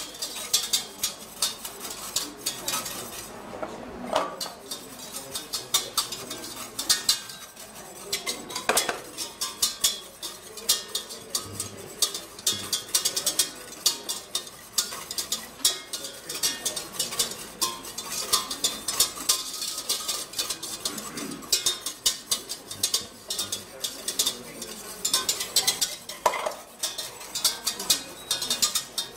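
A wire whisk beating quickly against the inside of a stainless steel saucepan, a rapid, steady metallic clicking and scraping, as passion fruit, water and clarified butter are whisked into an emulsion that is thickening.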